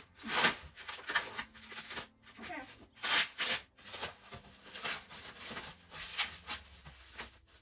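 Plastic wrapping and foam packing sheets rustling and crinkling in irregular bursts as a part is pulled out and unwrapped by hand.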